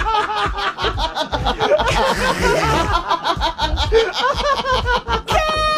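People laughing hard in a radio studio at a punchline, in rapid overlapping ha-ha pulses. Near the end a high-pitched held note sounds for about a second.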